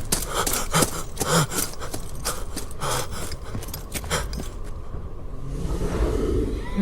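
A man's gasping, heavy breaths mixed with scuffing footsteps and scrapes, with a rising rush of noise near the end.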